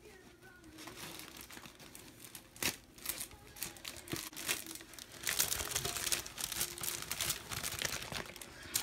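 Clear plastic packaging crinkling and crackling as a wrapped craft kit is pulled out of a fabric tote bag and handled, busier and louder in the second half, with one sharp crack near the start.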